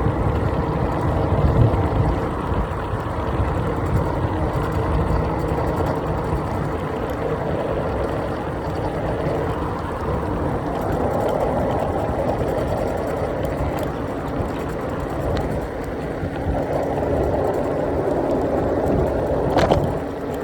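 Wind buffeting the microphone and road noise while riding an iENYRID M4 Pro S+ 800 W electric scooter, with a faint steady hum underneath. There is a brief sharp sound near the end.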